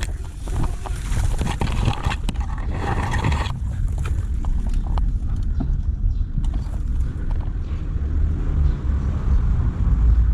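Footsteps and rustling through vegetation, with many short sharp clicks over a steady low rumble of wind on the microphone; the rustling thins out about three and a half seconds in.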